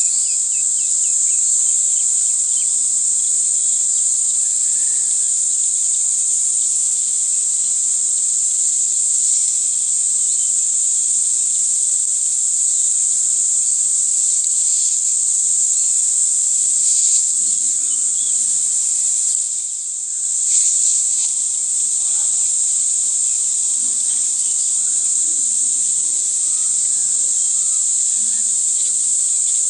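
A steady, high-pitched chorus of insects such as crickets trilling in grassland, which dips briefly about two-thirds of the way through.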